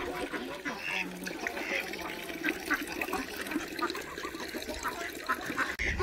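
A flock of farmyard ducks quacking, with many short calls overlapping one another.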